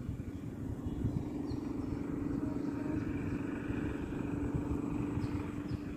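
An engine running steadily at one even pitch over a low, uneven rumble.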